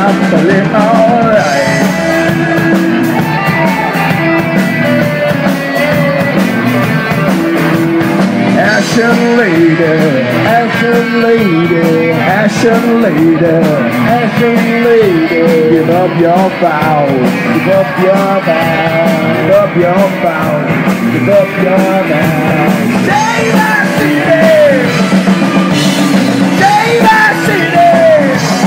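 Live rock band playing loud: electric guitars and a drum kit, with a male lead vocal over them.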